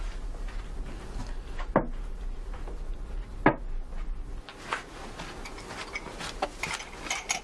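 Game pieces clicking as they are set down and moved on a board: two sharp clacks about a second and a half apart, then a quick run of lighter clicks near the end.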